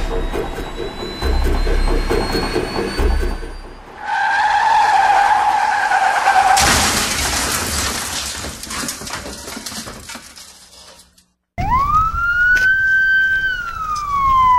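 Car engine revving hard, then tyres screeching for about two seconds, then a sudden loud crash whose noise fades away. After a moment of silence a siren wails, rising, holding and then starting to fall.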